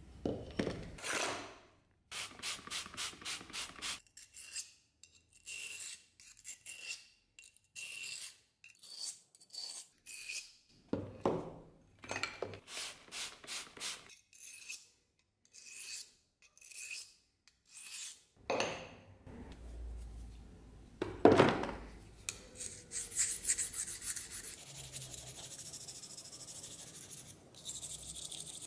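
Steel knife blade being stroked across oilstone-type sharpening stones: first a quick run of scraping strokes, then slower single strokes about once or twice a second. A few squirts from a spray bottle wet the stone, the loudest past the middle, and near the end the blade is worked fast and continuously against a round stone.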